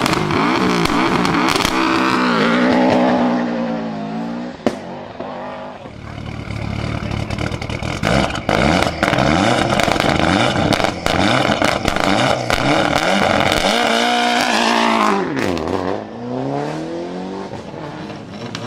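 Rally car engine revving hard, its pitch climbing and dropping again and again as it shifts gears and lifts off, with a sharp crack about five seconds in and a few more short cracks later.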